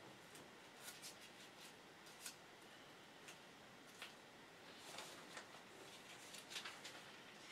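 Faint rustling and soft ticks of thin Bible pages being leafed through by hand, in short scattered bursts.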